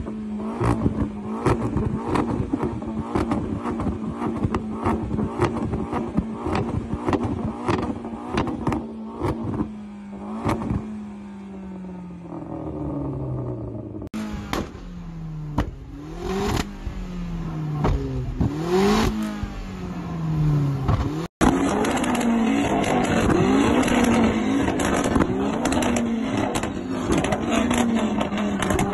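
Car engines fitted with exhaust flamer kits, revving with sharp exhaust bangs as the flamer ignites unburnt fuel in the exhaust. First an engine is held high in the revs with bangs about twice a second, then the revs fall away. After that come short throttle blips rising and falling with more bangs, and then another car revving steadily.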